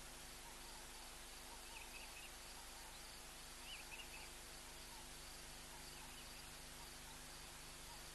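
Faint natural ambience: insects trilling steadily, with a few short bird chirps about two, four and five seconds in, over a steady hiss.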